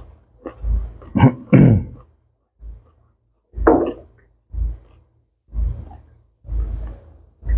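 A person eating close to the microphone: repeated chewing and mouth smacks about once a second, with a short hummed 'mm' a little over a second in.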